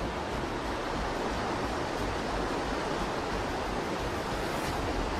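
Steady, even rushing noise with no distinct events, like flowing water or wind.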